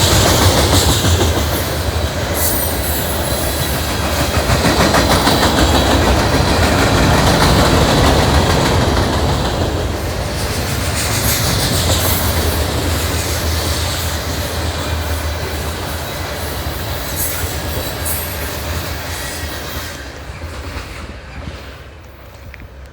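Long freight train's cars rolling past at speed, a steady loud rumble and clatter of wheels on rail. It fades away over the last few seconds as the end of the train goes by.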